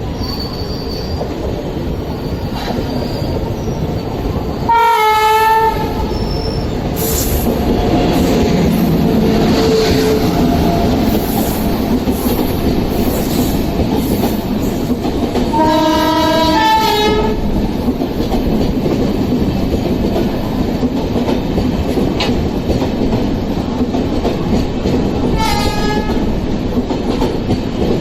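Passenger train running past at speed, a steady rumble with wheels clattering over rail joints, while a train horn sounds three times: a short blast about five seconds in, a longer blast that changes pitch partway about sixteen seconds in, and a short blast near the end.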